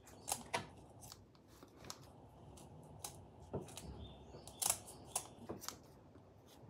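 Kitchen scissors snipping through raw chicken: a string of short, sharp snips and clicks of the blades closing, at uneven intervals.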